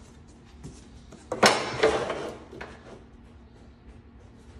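A sharp clatter about one and a half seconds in, followed by a few lighter knocks, as a flooring plank is set into the bed of a guillotine flooring cutter.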